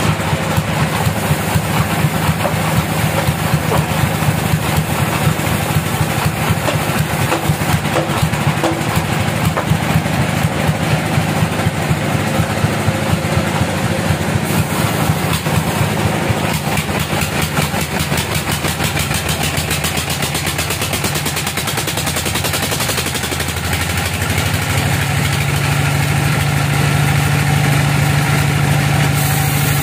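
Engine-driven homemade bandsaw sawmill running steadily. A stronger, steadier low hum sets in about three-quarters of the way through, as the band blade comes up to the log.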